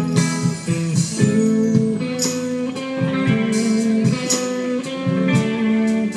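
Live band music with guitar playing held notes over a moving lower line, and regular percussion hits.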